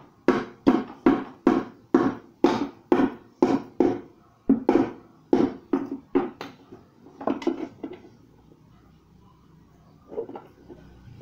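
Hammer driving nails into 3/4-inch plywood: a run of quick strikes, about two to three a second, for the first six seconds or so, then a few quieter taps about seven seconds in and two more near the end.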